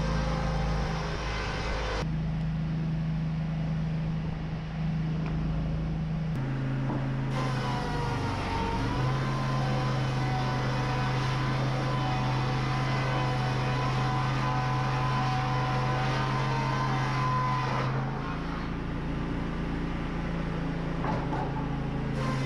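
Engine-driven Wood-Mizer sawmill machinery running with a steady mechanical drone, as cedar boards are milled. Its pitch drops for several seconds in the middle and then rises again.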